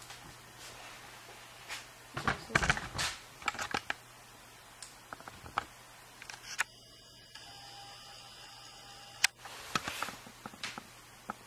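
Sharp cracks and clicks of a CZ 455 .22 LR bolt-action rifle being handled and fired, with the loudest cluster about two seconds in and one single sharp crack about nine seconds in.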